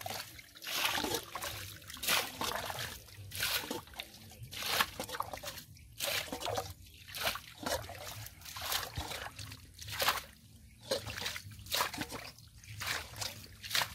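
Shallow muddy water trickling and sloshing along a ditch, with irregular splashes about once or twice a second.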